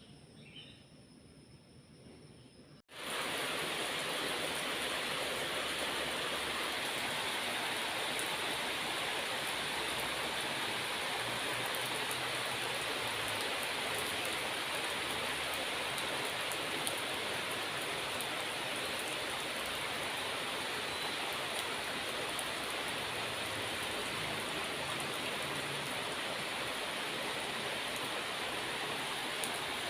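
Steady rain falling, a dense even hiss that cuts in abruptly about three seconds in and holds steady; before it, faint insect calls.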